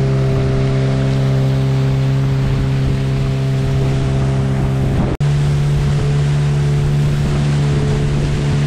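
Outboard motor of a small aluminium boat running steadily at speed, with water rushing along the hull and wind on the microphone. A brief cut comes just past halfway, after which the engine note sits slightly higher.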